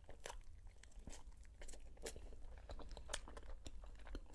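A person chewing a bite of pan-fried khinkali (Georgian dumpling) close to the microphone: many short, sharp, irregular mouth clicks and crackles of chewing.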